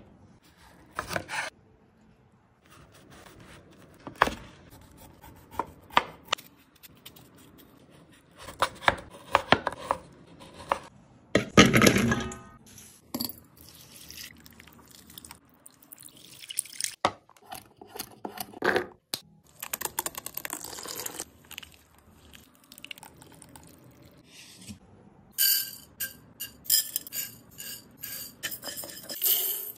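A run of separate kitchen-prep sounds in short clips: green jackfruits handled on a wooden board, a loud noisy stretch lasting about a second about twelve seconds in, water poured into a bowl over tamarind, and near the end raw rice poured onto whole spices in a dry pan, a dense patter of small grains.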